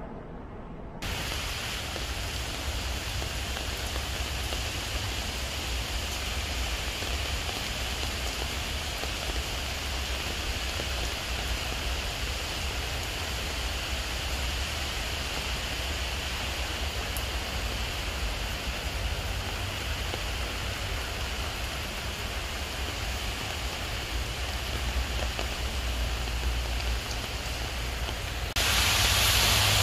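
Steady rain falling on leaves and a wet paved path: an even hiss with a low rumble underneath. It starts abruptly about a second in and steps suddenly louder near the end.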